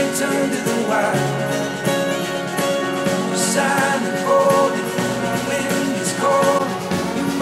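A song with singing and guitar, played through a pair of Kali Audio LP-8 studio monitors and picked up by a microphone in the room.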